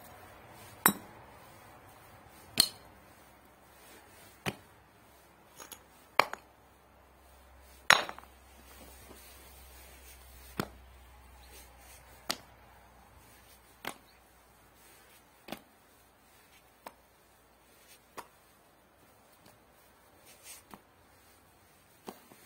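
Rocks and weathered wooden planks being set down into a dug hole, each landing with a sharp knock, about one every one to two seconds. The loudest knocks come in the first eight seconds, and later ones are softer.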